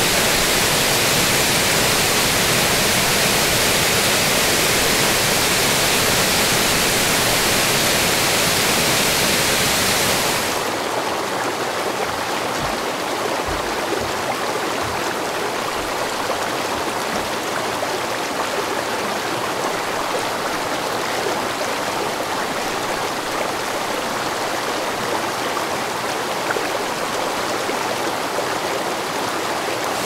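Spring water of the Mototaki Fukuryusui underflow pouring down a mossy rock face in a dense, steady rush. About ten seconds in it changes to a quieter mountain stream splashing and gurgling over mossy boulders.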